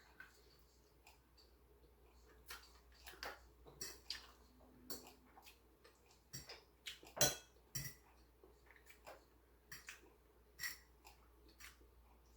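Someone eating quietly: scattered small clicks and taps of chewing and of utensils against a dish, the loudest click about seven seconds in.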